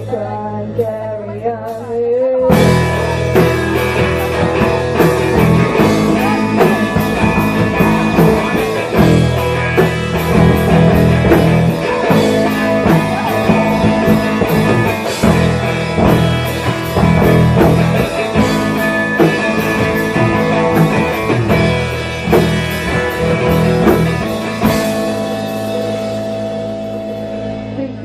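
Rock band playing live with electric guitars and drum kit: held guitar notes at first, then the full band comes in loudly about two seconds in with steady drum hits, easing to ringing chords near the end.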